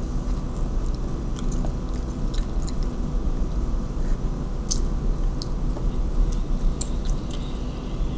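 Chewing a crunchy Old El Paso spicy cheddar taco shell close to the microphone: scattered small crisp crunches, with one sharper crunch a little past halfway, over a steady low hum.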